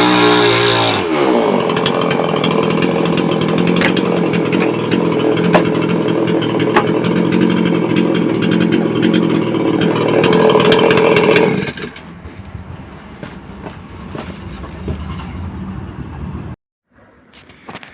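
Brait petrol chainsaw's two-stroke engine running steadily at high revs, then much quieter from about twelve seconds in, before the sound cuts off abruptly near the end.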